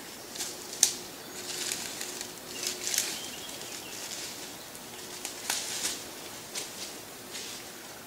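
Scattered dry rustles and crackles in brushy undergrowth, with one sharp snap about a second in and a few more bunched near the middle; a faint low hum comes and goes underneath.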